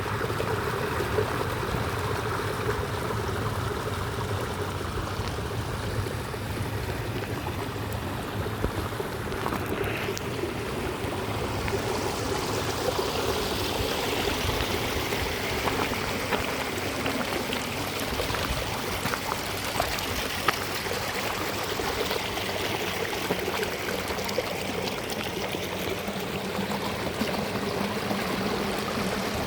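Water falling into a lake: a steady splashing rush, with small splashes and drips ticking through it.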